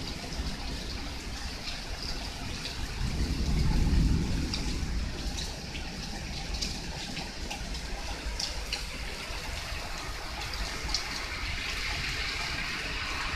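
Heavy rain pouring steadily, with scattered sharp drip ticks close by. A low rumble swells and fades about three to four seconds in.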